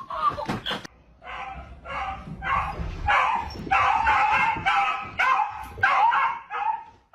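A dog yipping and barking over and over, about a dozen short, high calls in quick succession.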